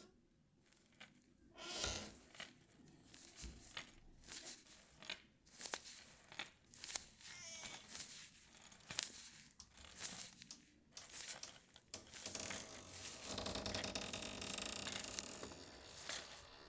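Foley of crumpled latex gloves crinkling and crackling in scattered short bursts, standing in for a creature moving about. About three-quarters of the way in it thickens into a denser, louder rustle and clatter, the dragged metal chains and rusty keys of the same mix.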